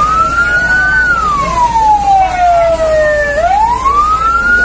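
Fire engine siren wailing loudly and close, in slow sweeps: each tone rises quickly, then falls slowly over a few seconds, repeating about every four seconds.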